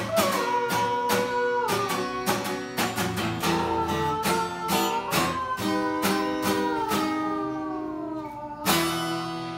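Acoustic guitar strummed in a steady run of chords, ending with a last strummed chord shortly before the end that is left to ring and fade out: the close of a song.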